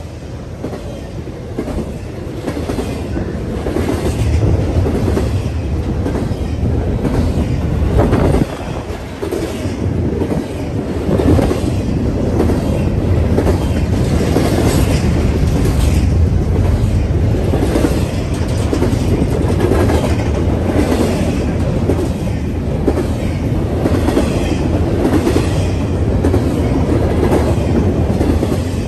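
A CSX double-stack intermodal freight train passing close by: a steady rumble of the loaded well cars with the clickety-clack of wheels over the rail joints, growing louder about four seconds in.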